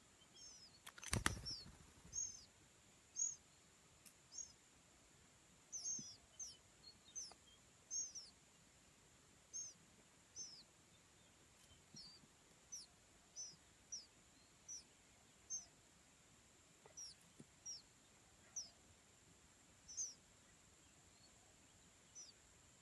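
Oriental magpie-robin (kacer) calling with short, high, hooked chirps repeated about once a second. A brief knock or rustle about a second in is the loudest sound, and a faint steady high tone runs underneath.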